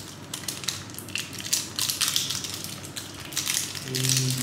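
Irregular crackling and crinkling of plastic packaging being handled and peeled from a toy surprise egg, the crackles coming thicker toward the end.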